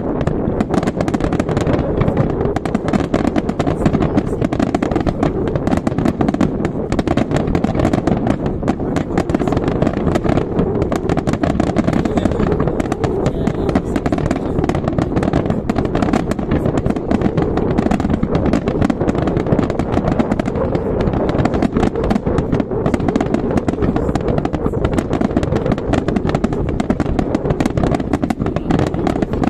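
Fireworks display at full barrage: many shells bursting at once, their bangs and crackles merging into one unbroken din with no pauses.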